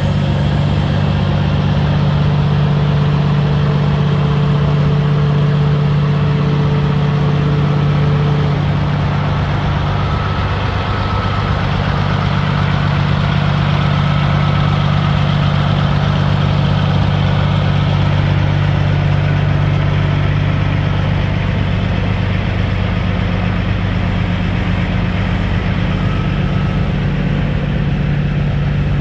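Big-rig diesel engine idling steadily, a loud, even low hum.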